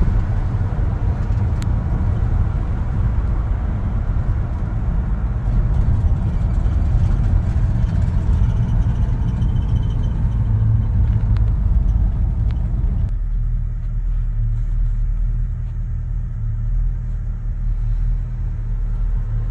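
A Ford 302 (5.0 L) V8 pulling a 1966 Ford F100 pickup along the road, heard from inside the cab as a steady low rumble with road noise. About two-thirds of the way in, the engine and road noise drop off suddenly as the truck slows to a stop, leaving a lower rumble.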